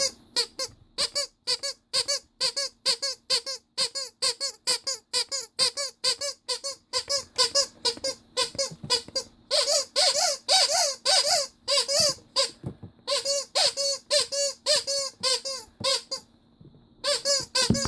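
Vintage Ledraplastic rubber squeaky toy squeezed over and over, about three or four squeaks a second, each a short pitched squeak. A few squeaks wobble in pitch, and there is a short pause near the end.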